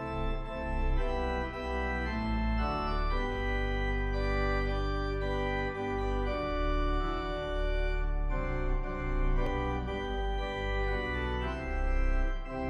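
Background music of sustained organ-like keyboard chords, changing every second or so.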